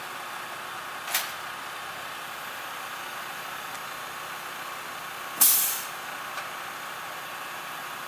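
Compressed air venting from a Mack Granite concrete mixer truck's air system: a short sharp hiss about a second in, then a louder hiss lasting about half a second that fades out, over the steady sound of the truck running.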